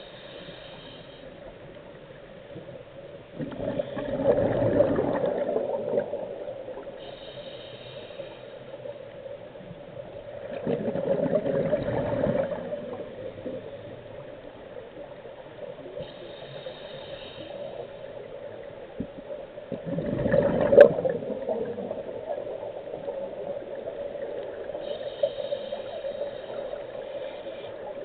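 Scuba diver breathing through a regulator underwater: a faint short hiss on each inhalation, then a louder rush of exhaled bubbles a few seconds later, three breaths about eight seconds apart, over a steady hum.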